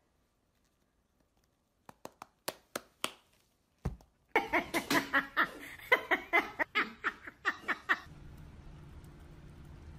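A few sharp clicks, then a person laughing in rapid bursts for about four seconds, stopping abruptly.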